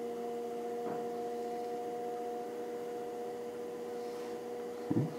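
Electric pottery wheel's motor running steadily at about medium speed: a constant hum with a clear higher tone above it.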